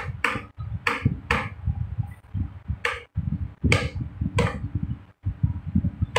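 Computer keyboard keys being pressed about six times at irregular intervals, each a short sharp click, as the entry fields are advanced.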